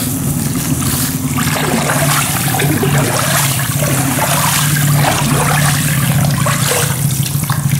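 Water and palm oil sloshing and splashing in a trough as hands stir and squeeze palm fruit fibre through it, washing the oil out of the fibre so it separates from the water. A steady low hum runs underneath.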